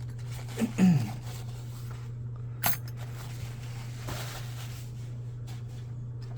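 Small metal lock-pick tools and wires being handled, with a brief falling tone about a second in and a sharp light click near the middle, over a steady low hum.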